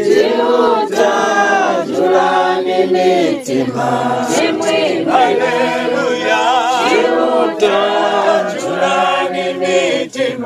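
A group of worshippers singing a hymn together unaccompanied, several voices at once, in a local Zambian language. Some of the held notes waver.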